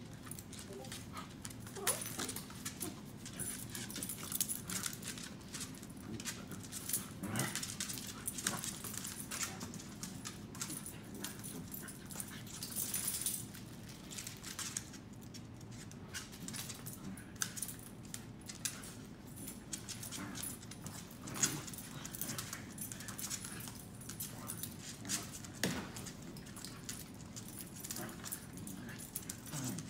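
An adult corgi and a corgi puppy play-fighting: claws scrabbling and clicking on a hard floor, with scuffling and short dog vocalisations such as whimpers.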